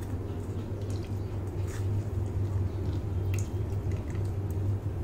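Steel spoon pressing boiled grated bottle gourd against a stainless-steel mesh strainer to squeeze out the cooking water: soft squishes with a few light clicks and scrapes, over a steady low hum.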